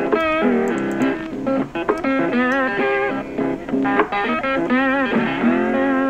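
Background music: a guitar melody with wavering, bent notes over a steady accompaniment.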